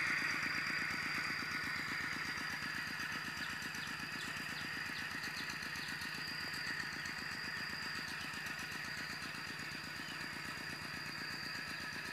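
Small engine running steadily with a rapid, even chugging beat.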